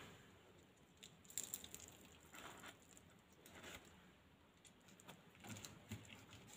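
Faint, scattered crackles and rustles as a crisp fried zucchini and carrot fritter is handled and broken open in the fingers over paper towel.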